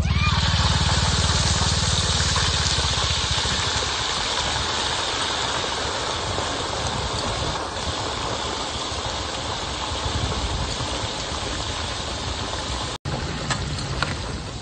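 Hot oil sizzling as a batch of crickets is tipped into a deep pot of it: the sizzle starts suddenly and loud, then carries on as a steady, vigorous hiss while they fry, easing slightly over time. A brief break in the sound about thirteen seconds in.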